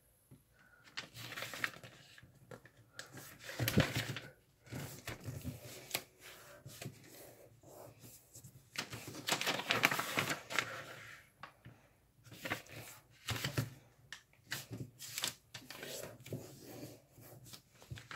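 A sheet of origami paper being folded and creased by hand: irregular rustling and crinkling, loudest about four and ten seconds in.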